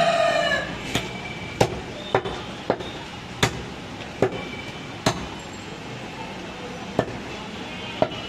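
A heavy butcher's cleaver chopping through goat rib meat and bone onto a wooden chopping block: about nine sharp chops at uneven intervals, with a longer pause past the middle. A rooster's crow trails off right at the start.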